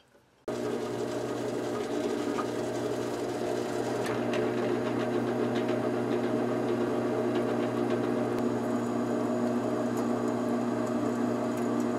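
Benchtop drill press running steadily with a hum, drilling into a small metal block clamped in a drill press vise. The motor starts about half a second in.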